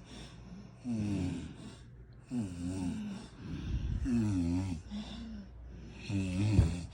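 A sleeping person snoring: a run of rough snores about every second to second and a half, each with a wavering pitched rattle.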